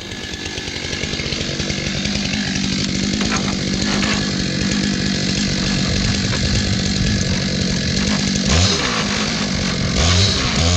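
Two-stroke Stihl MS661 chainsaw on an Alaskan mill running at high revs through a walnut log, growing louder over the first few seconds. Its engine pitch dips sharply and recovers twice near the end.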